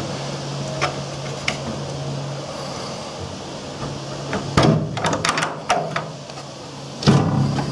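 Steel slide-bolt latch on a wooden trap-door frame being drawn back: a run of sharp metallic clicks and rattles about four and a half seconds in, then a louder knock near the end as the trap door is freed.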